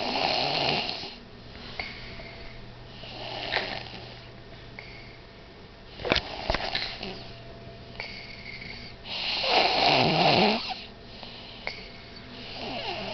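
Loud snoring from a sleeper: a drawn-out snore about every three to four seconds, the longest and loudest about ten seconds in. A couple of sharp clicks come about six seconds in.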